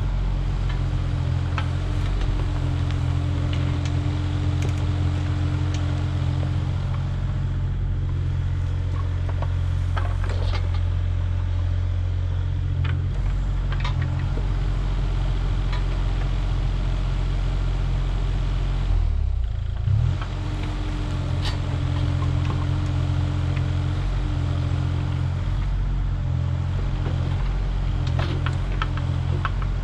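Kubota mini excavator's diesel engine running steadily as it digs and shifts soil. Occasional short clunks and knocks of the bucket working the dirt and stones come over the engine.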